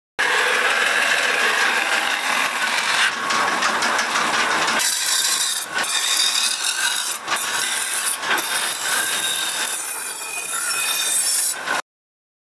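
Steel knife blade held against a large rotating sharpening wheel: a steady rasping hiss of metal grinding on stone. It changes abruptly several times and cuts off suddenly near the end.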